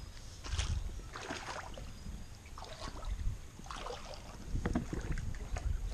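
Irregular splashes and sloshing of shallow water, with rustling, as a person climbs from a dock onto a raft of foam pool noodles tied with paracord, over a low wind rumble on the microphone.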